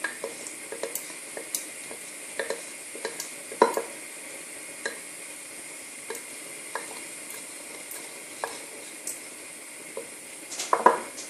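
Spoon stirring honey in a glass, tapping and clinking against the glass in irregular strokes, with a quick cluster of louder clinks near the end, over a steady faint hiss.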